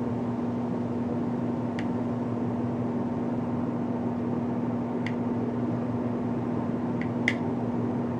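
Steady electrical hum with a fan-like noise underneath, and a few faint light clicks about two, five and seven seconds in.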